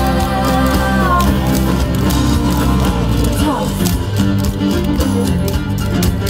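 Loud recorded music for dancing: a rock-style song with steady bass and guitar, a singer's voice heard in roughly the first second.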